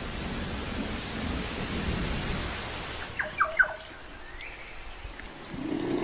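Heavy rain pouring onto floodwater with a low thunder rumble. About three seconds in it gives way to a quieter stretch with two short bird chirps.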